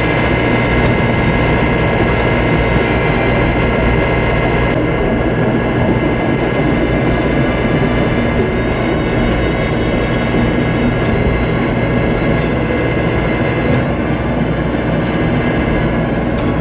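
John Deere 60G excavator's diesel engine running steadily under load, with a steady whine over the low rumble.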